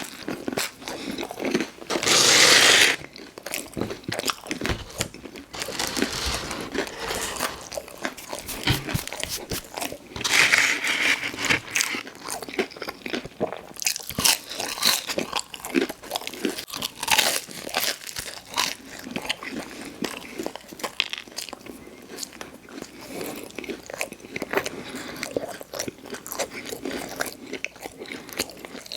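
Close-miked eating: crunchy bites and chewing, with irregular crackles and a couple of louder bites.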